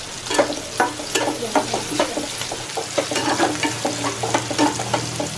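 Steel spoon stirring dried prawns (sode) through a sizzling onion-tomato masala in a kadhai, with frequent quick scrapes and knocks against the pan.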